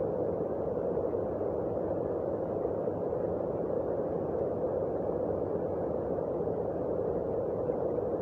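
Heavy rain, heard as a steady, dull rushing noise that does not let up.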